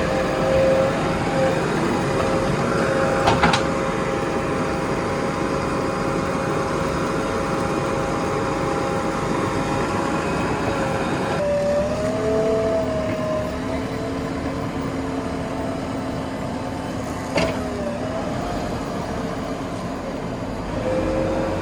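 A JCB backhoe loader's diesel engine runs steadily while the machine works, its pitch shifting about halfway through. Two sharp knocks sound, one early and one near the end.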